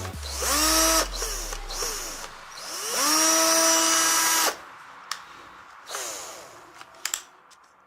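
Skil 14.4 V cordless drill, converted to a lithium-ion 18650 pack, run three times. Each time the motor whine rises as it spins up and then holds steady. The first run is short, about half a second in. The second, from about three seconds in, lasts nearly two seconds and stops suddenly. The third is a brief spin-up near the end, with a few clicks between the runs.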